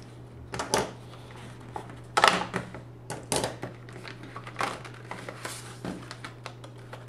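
Clear plastic clamshell packaging crackling and clicking as memory sticks are pried out of it: irregular sharp clicks, the loudest about two seconds in.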